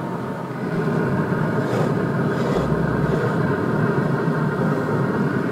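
Steady mechanical hum with a low rush, growing a little louder about a second in, with a few faint light knocks around the middle.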